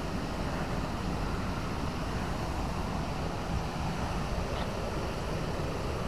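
Wind buffeting the camera microphone: a steady rushing noise with a flickering low rumble.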